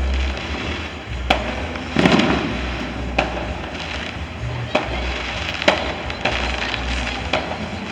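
Fireworks and firecrackers going off: scattered sharp bangs and pops, the loudest about one, two, three and five and a half seconds in, with a burst of crackle about two seconds in.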